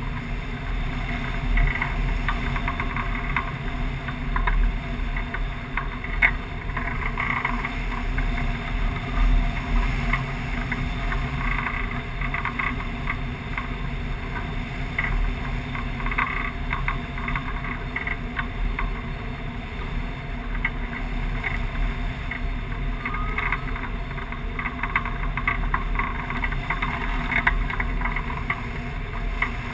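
Wind noise from the airflow over a wing-mounted camera on a tandem hang glider in flight: a steady rush with a heavy low rumble and uneven buffeting.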